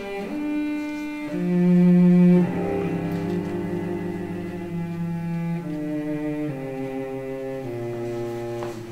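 Background music: a slow melody of long held notes, with a louder low note about a second and a half in.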